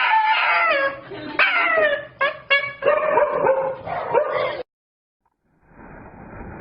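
A dog whining and yipping in high, wavering cries that slide up and down in pitch, with a few short sharp yips a little after two seconds in. The cries cut off suddenly about four and a half seconds in. A second later a faint steady hiss begins.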